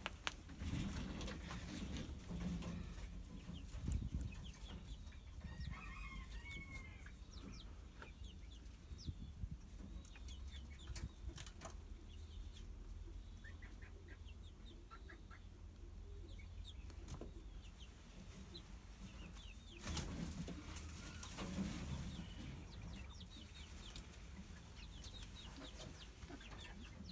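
Pigeons being caught and handled: rustling, wing flaps and a few louder bumps, with faint short bird calls.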